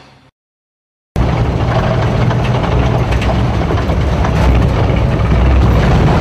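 Theme music fades out into a second of silence. Then a loud, steady, low mechanical rumble, like an engine running, starts suddenly, with a few faint clicks and knocks over it.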